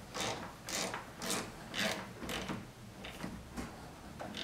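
Ratchet wrench clicking in short strokes, about two a second, tightening the negative battery cable clamp onto the battery terminal.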